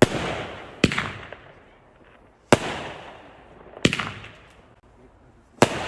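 Fireworks going off: five sharp bangs at uneven spacing, roughly one to two seconds apart, each followed by a fading echo.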